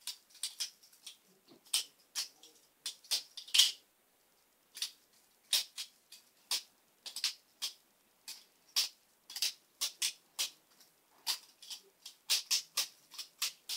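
A titanium-handled Benchmade 51-style balisong being flipped by hand: a long irregular run of sharp metallic clicks and clacks as the handles swing open and shut against the blade and pins, with a short pause about four seconds in.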